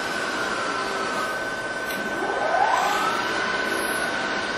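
Steady machine hum with a high whine; about two seconds in, a motor speeds up, its pitch rising over about a second until it merges with the whine.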